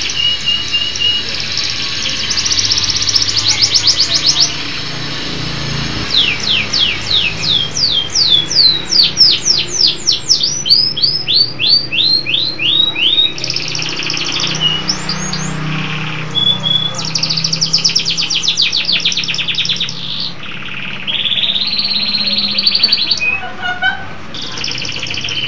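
Local Indonesian canary (kenari lokal) singing a long, continuous song of rapid trills and rolls, with a run of fast downward-sweeping notes in the middle.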